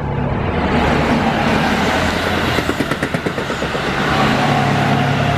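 Keihan 3000 series electric train running past, its wheels giving a quick run of rhythmic clicks over rail joints about midway. A faint falling whine follows near the end.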